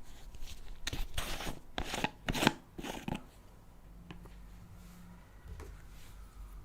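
Slime being squished and worked by hand: a quick cluster of squishy, crackling noises lasting about two seconds, starting about a second in, then a few faint clicks.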